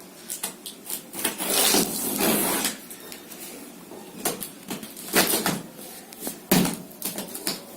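A printer's cardboard box being opened and its packaging handled: a long scraping rustle about a second in, then several shorter rustles and knocks.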